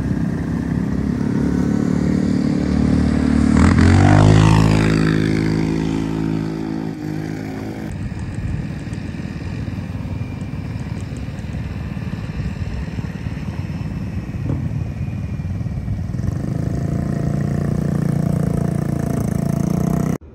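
A motor vehicle's engine passing close by, loudest about four seconds in, its pitch dropping as it goes away, over a steady rushing background noise.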